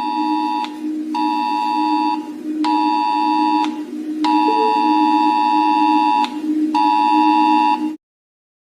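Emergency alert system attention tone: a two-tone beep near 1 kHz sounding in pulses about a second long, one nearer two seconds, with half-second gaps, over a steady low drone. It cuts off suddenly near the end.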